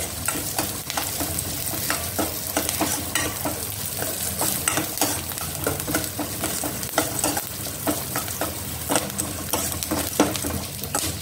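A tempering of chana dal, urad dal, mustard seeds, curry leaves, green chillies and cumin sizzling in hot oil in a stainless steel pan while being stirred briskly. A steady sizzle runs under many irregular sharp clicks.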